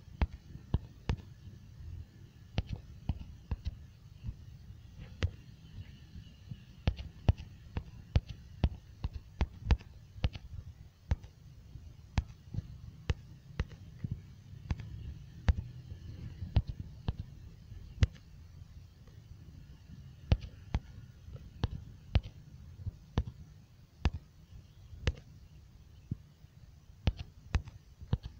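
Irregular clicks of typing on a smartphone's touchscreen keyboard, roughly two a second and sometimes in quick pairs, over a low steady hum.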